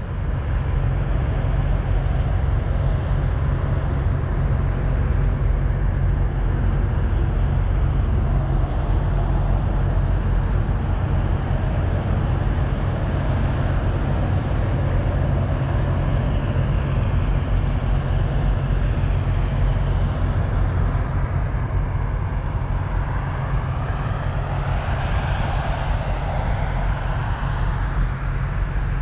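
Steady low drone of a truck's diesel engine with road noise while the truck is moving. Faint rising and falling whines come through in the second half.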